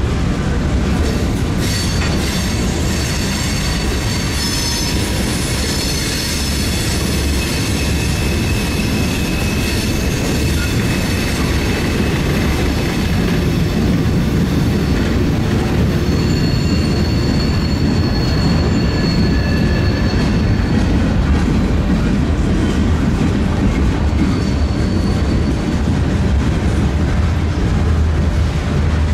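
Freight cars of a manifest train rolling past close by: a steady rumble of steel wheels on rail, with high, thin wheel squeal starting about two seconds in and lasting until about two-thirds of the way through, then returning briefly near the end.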